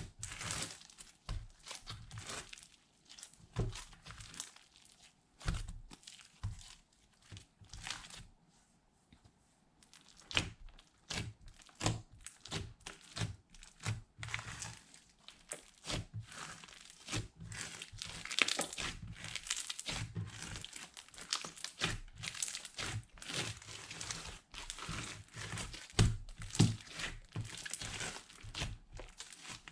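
Slime being squished and kneaded by hand, giving off many irregular sticky crackles and pops, with a brief lull about eight seconds in.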